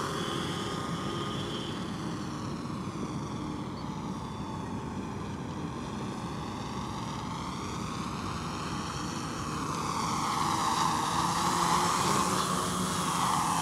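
LotusRC T380 quadcopter's motors and propellers buzzing in flight. The sound fades as the quad climbs away, then grows louder again from about ten seconds in as it sweeps back low past the microphone.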